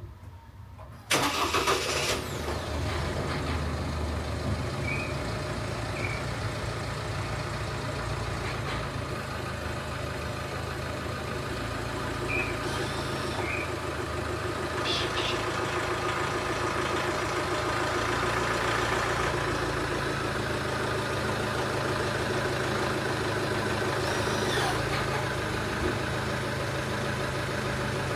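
A vehicle engine starting about a second in, then running steadily at idle.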